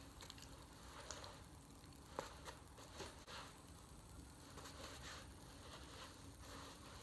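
Near silence: quiet room tone with a few faint, short clicks and soft rustles.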